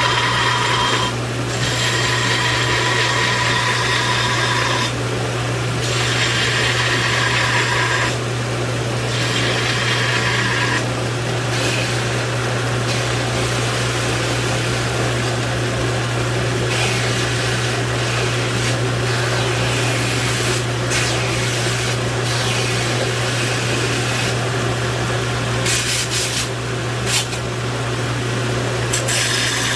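Power grinder running steadily while steel is ground against it in repeated passes of a few seconds each, the grinding hiss coming and going over the motor's constant hum.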